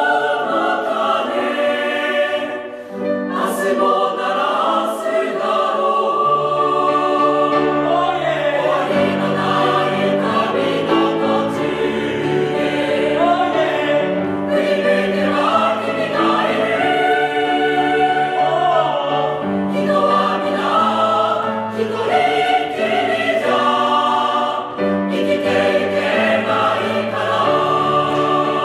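Choral music: a choir singing slow, sustained chords, with a low bass line coming in about six seconds in.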